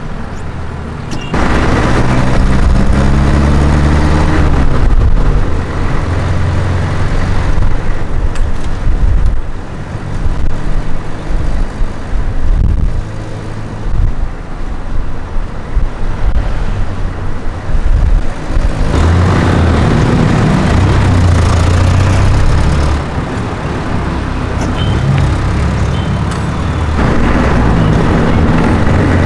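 Street traffic: motor vehicle engines running and passing close, with an engine revving up about two seconds in and again near the end.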